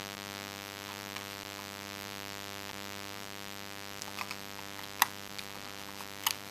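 A few sharp plastic clicks from handling a home-phone unit's battery and casing, the loudest about five seconds in and another near the end, over a steady electrical hum.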